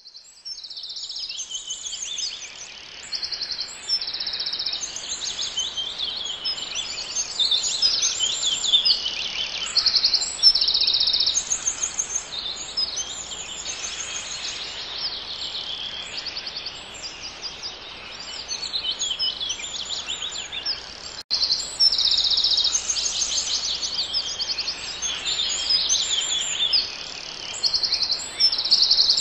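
A chorus of several songbirds singing over one another, with fast high trills and chirps repeating throughout. There is a very brief break in the sound about two-thirds of the way through.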